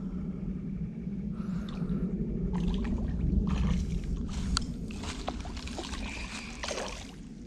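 A hooked largemouth bass splashing at the water's surface close to the bank as it is reeled in, with a run of sharp splashes from about two and a half seconds in, over a steady low rumble.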